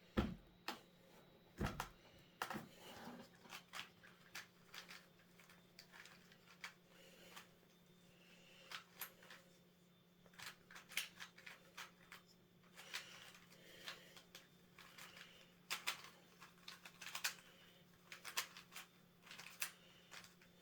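A 3x3 Rubik's cube being turned by gloved hands: faint, irregular clicks and clacks as the layers turn. A faint steady hum runs underneath.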